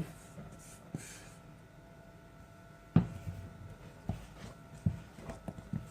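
A utensil knocking against a mixing bowl a few times while flour is added to cake batter and mixed in; the sharpest knock comes about three seconds in, with smaller taps after it.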